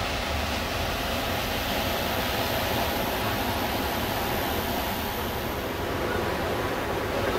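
Steady rushing wash of sea surf breaking on the beach, an even roar with no distinct waves standing out.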